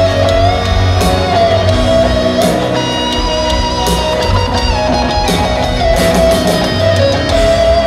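Live rock band playing, led by an electric guitar with long held notes that bend in pitch, over bass and drums.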